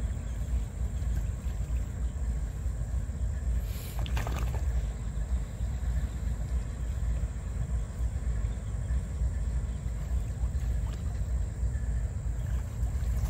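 Low, unsteady rumble of wind buffeting the microphone, with a brief scuff about four seconds in.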